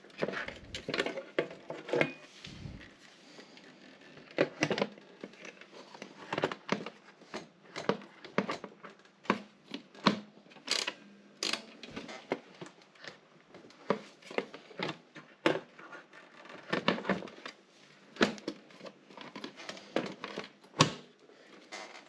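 Irregular clicks, knocks and small rattles from an Olympia SM 7 portable typewriter and its carrying case being handled, with a few low thumps in the first few seconds.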